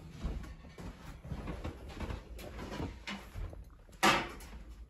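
Kitchen handling noise while cookware is fetched to swap to a smaller glass baking dish: light knocks and shuffling, then one sharp clatter about four seconds in, as of a cupboard or oven storage drawer opened among pans.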